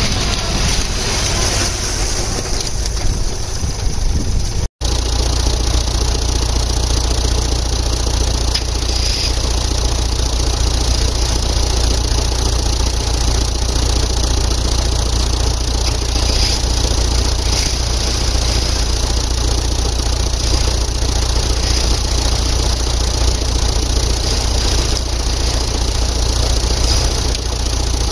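Vehicle engine running steadily at a low, even speed. The sound cuts out for an instant about five seconds in.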